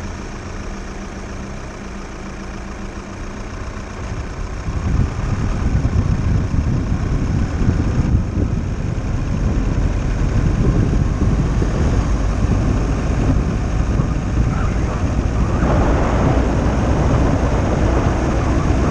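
VW T6 camper van's engine running at idle, then the van moves off and a loud, rough rumble of engine, tyres and wind on an outside-mounted camera builds from about four seconds in and holds.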